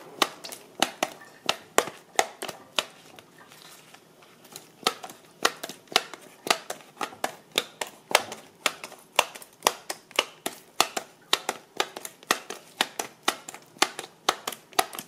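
Handheld plunger-type needle meat tenderizer pressed repeatedly into raw steak on a plastic cutting board: sharp clacks about three a second, with a short break about three seconds in.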